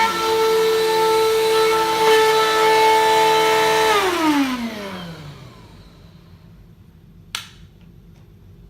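Vacuum cleaner running with a steady whine, then switched off about four seconds in, its motor winding down in falling pitch over about a second and a half. A single sharp click follows near the end.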